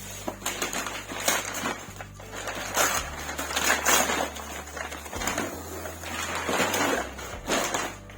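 Plastic packaging and cardboard rustling and crinkling in irregular bursts as items are handled and unwrapped.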